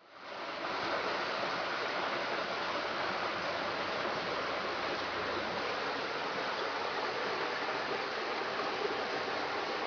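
Rushing water: the steady, even noise of a stream and waterfall running full, fading in over the first half-second and then holding constant.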